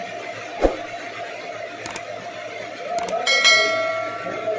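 Two sharp clicks, then a ringing notification-bell chime about three seconds in: the sound effect of an animated subscribe button. A dull knock comes under a second in.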